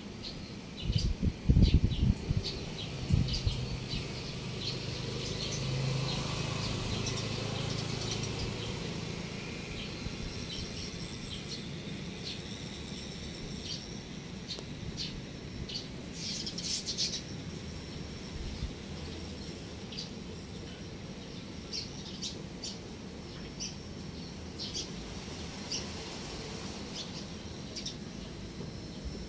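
Birds chirping in short, scattered high calls, some in quick clusters. Near the start there are a few low rumbles on the microphone, and for a few seconds after them a faint low drone.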